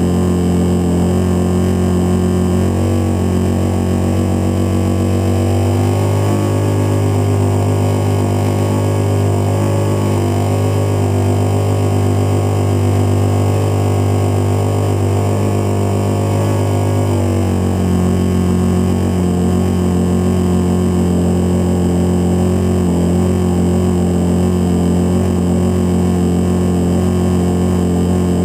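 Great Planes Avistar RC plane's 30cc two-stroke gas engine running steadily in flight, heard from inside the fuselage with the rush of air. Its pitch drops a little about six seconds in and comes back up about two-thirds of the way through.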